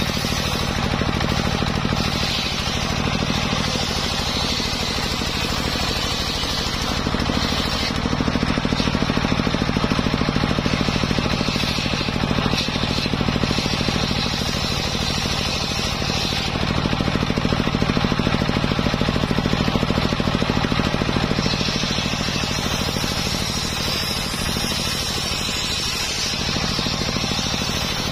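Homemade circular saw bench ripping jackfruit timber: its drive runs steadily while the large toothed blade cuts through the wood. The higher cutting noise swells louder in two stretches as lengths are fed through.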